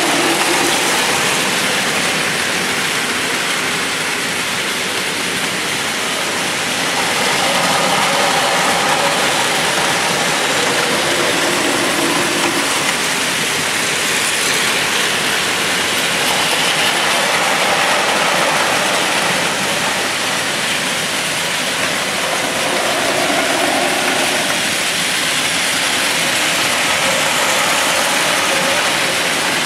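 Several battery-powered Plarail toy trains running at once on plastic track: a steady mix of small gear motors whirring and wheels rattling over the track, with faint motor whines coming and going as trains pass.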